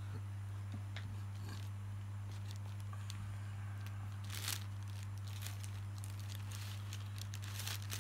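Brown paper food wrapping being pulled open and torn, rustling and crinkling in short bursts, loudest about halfway through and again near the end, over a steady low hum.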